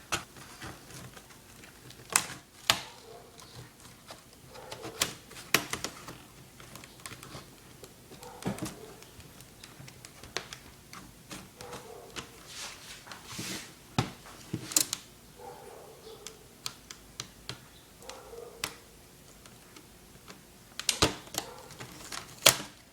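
Irregular plastic clicks and taps as a flat-edge tool pries the keyboard out of an HP Pavilion G7 laptop.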